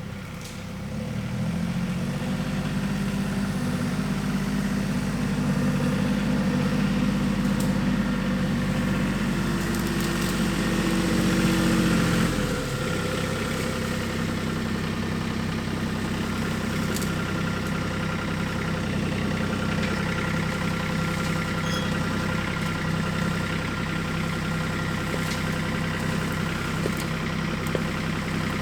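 A vehicle engine running steadily. It comes up in level about a second in, then drops to a lower pitch at about twelve and a half seconds and runs on steadily.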